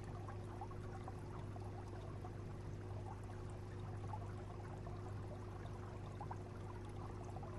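Aquarium water circulating: a steady pouring, trickling splash of water over a constant low pump hum.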